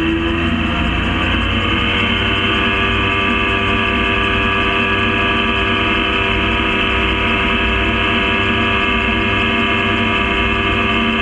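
Gyrocopter's engine and propeller running at steady power: a loud, even drone of many pitched tones, which shifts slightly in pitch at the start and then holds steady.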